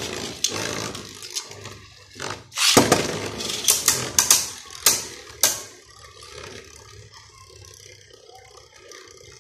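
Beyblade spinning tops whirring in a clear plastic stadium. About three seconds in, a second top is ripped off a string launcher with a loud ratcheting rush. The two tops then clash with several sharp clicks before settling into a quieter, steady spinning whir.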